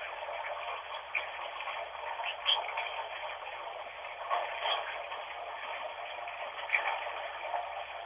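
Running bathwater, a steady hiss with a few faint brief blips in it.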